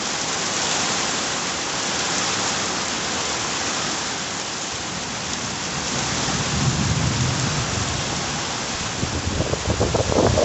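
Heavy thunderstorm rain, a steady hiss. A low rumble joins in about two-thirds of the way through and grows louder and more uneven near the end.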